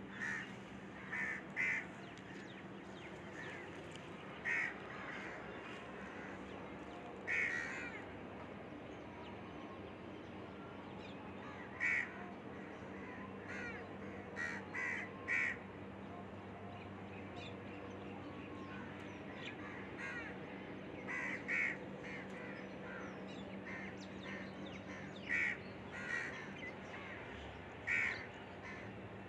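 Birds calling in the background: short caw-like calls every few seconds, often in pairs or threes, over a steady low hum.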